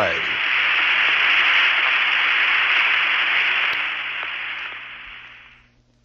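Steady rushing radio static, thin and hissy, fading out over the last two seconds.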